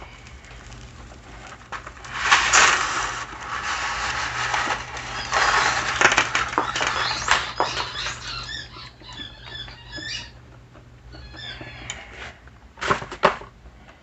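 Dry spaghetti rustling and clattering as it is put into a pot of rapidly boiling water, over a steady low hum. A run of short, high squeaky chirps follows in the second half, then two sharp clatters near the end.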